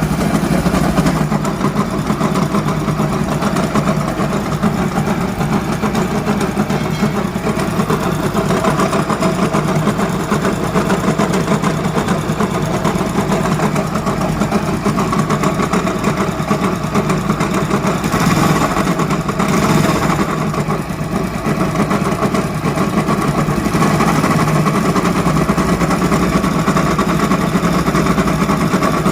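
Hero Honda motorcycle's single-cylinder four-stroke engine running steadily, carrying the noise of a worn crankshaft bearing.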